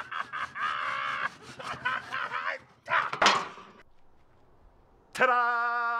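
A man laughing wildly in quick bursts, then one loud yell about three seconds in. After a short lull comes a long, drawn-out shout of "Ta-da!" near the end.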